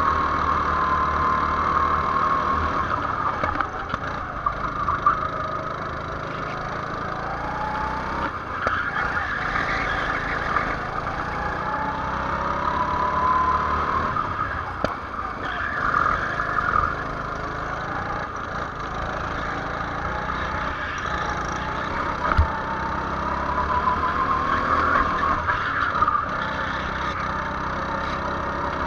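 Go-kart engine heard from onboard the kart, its pitch climbing and dropping over and over as it accelerates out of corners and eases off into them. A brief sharp knock sounds about three-quarters of the way through.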